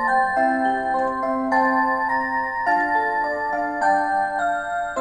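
Rhythm CTS Golden Ringers Ultra musical wall clock playing one of its electronic CTS melodies in clear, bell-like tones. The notes follow one another at an even pace, each held briefly.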